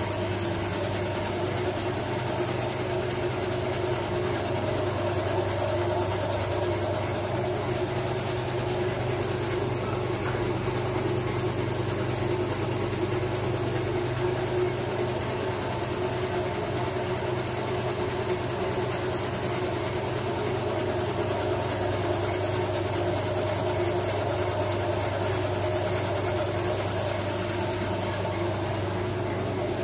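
Barcode sticker making machine running with a steady, even hum of motors and rollers.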